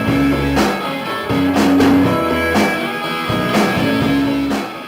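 Rock music with electric guitar and a drum kit keeping a steady beat, dropping away at the very end.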